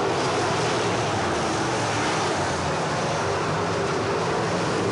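A pack of crate-engine late model dirt-track race cars running laps, with a steady, unbroken engine drone.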